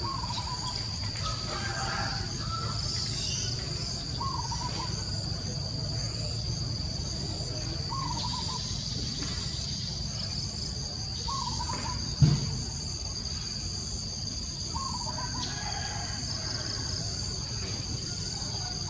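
Steady high-pitched drone of insects, with a short rising-and-falling call repeating about every four seconds and a single sharp thump about twelve seconds in.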